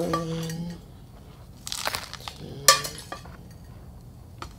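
Chunky potting mix crunching as it is handled and scooped to backfill a pot, with two hollow knocks against the pot or a container. The first knock, at the start, rings for about a second; the second comes a little past halfway.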